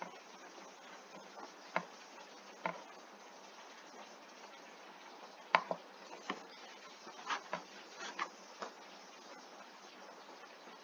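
Scattered single clicks of a computer mouse and keyboard, about ten in all, irregularly spaced and clustered in the second half, over a faint steady hiss.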